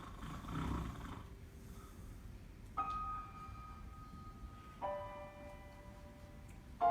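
Background music: three struck, ringing bell-like notes about two seconds apart, each held and fading, after a brief low rumbling swell in the first second.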